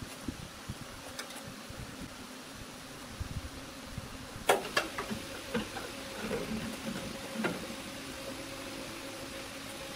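A sharp metallic clank about four and a half seconds in, then a few lighter metal clicks, as a hand tool works against the steel jointer table of the woodworking machine. A steady faint hum runs underneath.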